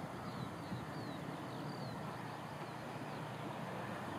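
Open-air field ambience: a steady low rush, with small birds chirping a few short, high, falling notes now and then.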